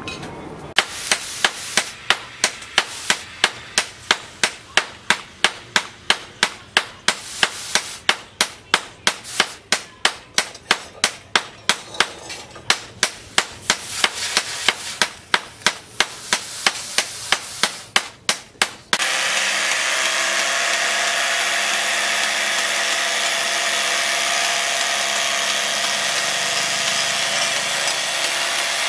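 Steady hammer strikes, about two or three a second with a few short pauses, stop abruptly about two-thirds through. An electric jigsaw then cuts a wooden board with a steady buzz.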